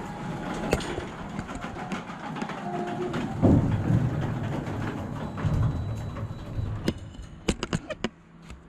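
Ryobi garage door opener running as it raises the garage door, a steady mechanical hum that stops a second or two before the end. A few sharp clicks follow near the end.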